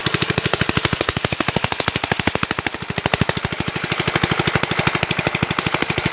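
12 hp single-cylinder diesel engine running steadily under load, driving an irrigation water pump, with a fast even exhaust knock of about a dozen beats a second. The water gushing from the pump outlet adds a steady splashing rush.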